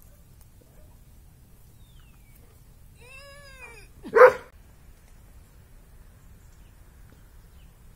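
A dog gives a short pitched cry that rises and falls, then about a second later one loud, sharp bark.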